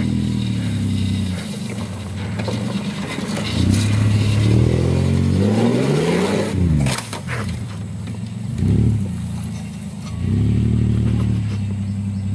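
Chevrolet S10 Blazer's 4.3-litre V6 engine revving hard off-road, its pitch climbing and falling repeatedly, peaking about halfway through, with a short rev near the end before settling into steady running.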